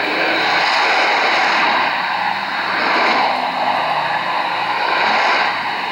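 Degen DE1103 shortwave receiver tuned to 7375 kHz, its speaker giving out loud, steady static hiss with no programme audible. The noise swells and sags every couple of seconds, like a signal fading in and out.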